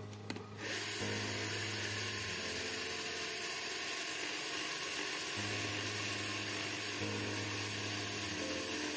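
Wood lathe starting up about a second in, then running with a steady hiss while the workpiece spins.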